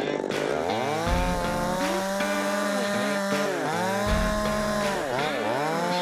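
Two-stroke chainsaw running at high revs and cutting. Its engine pitch drops and recovers several times as the chain bogs under load in the wood.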